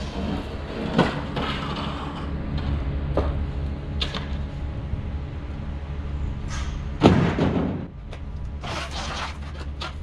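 Wooden pallets being carried and loaded: scattered knocks and wooden clatter, with the loudest bang about seven seconds in, over a steady low hum.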